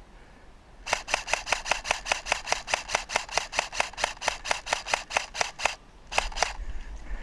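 Airsoft rifle firing a long, even string of sharp clicking shots, about six a second, for nearly five seconds. A few more shots follow near the end.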